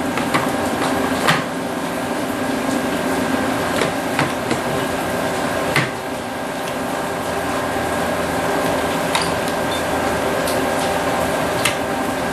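Scattered sharp clicks and light knocks of a plastic MyQ smart garage hub being handled and fitted onto its wall mount, about six in all, over a steady hum.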